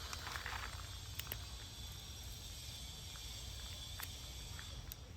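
Faint steady background hum and hiss with a few light clicks and a brief rustle about half a second in.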